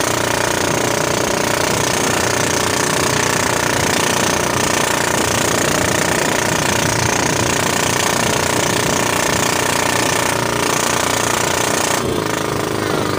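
Small fishing boat's engine running steadily under way, a loud, rapid mechanical clatter; its sound shifts slightly about twelve seconds in.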